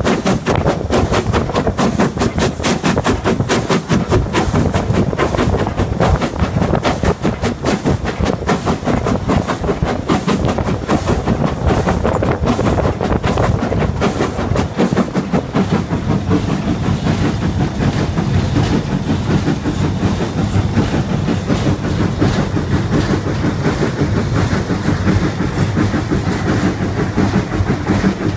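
LNER B12 4-6-0 steam locomotive running along the line, heard from its footplate: a fast, steady rhythmic beat and clatter from the engine and its wheels on the rails.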